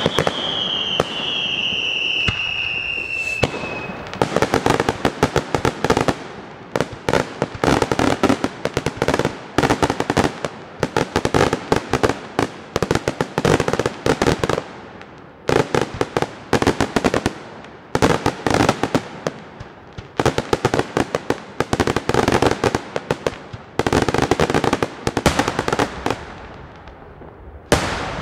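Daytime aerial fireworks: a falling whistle in the first few seconds, then wave after wave of bursts breaking into dense volleys of small firecracker reports, a rapid crackle of bangs in clusters about every two seconds.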